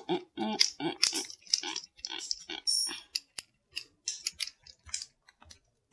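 A small screw being driven into a 3D-printed plastic Beyblade driver with a precision screwdriver, creaking and squeaking in short bursts with each twist, about three or four a second.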